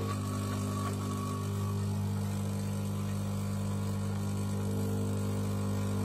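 Pump of a De'Longhi PrimaDonna Elite fully automatic espresso machine running as it brews espresso into a glass of milk: a steady low hum that starts suddenly.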